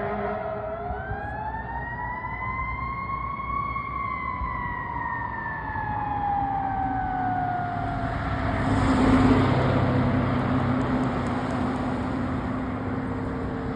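Fire department emergency siren wailing in one slow rise and fall in pitch over about eight seconds. Then the noise of a heavy vehicle passing close, loudest about nine seconds in.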